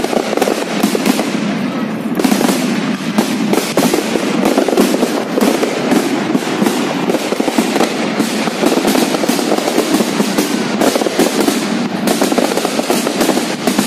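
Fireworks display going off in a dense, continuous barrage of rapid overlapping bangs and crackles.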